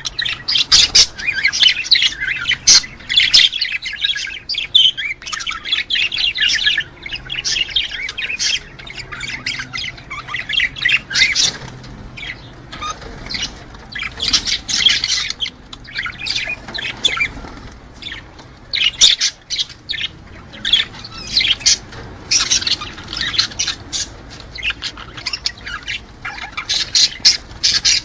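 Budgerigars chattering in breeding-season calls: a dense, unbroken stream of quick chirps, squawks and warbles, the excited courtship chatter used to bring budgies into breeding condition.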